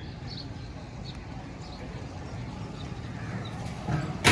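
Outdoor street background: a steady low rumble with a few short high chirps, and a single sharp knock at the very end.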